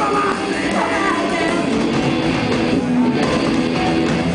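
Punk rock band playing live: electric guitars and a drum kit going loud and steady.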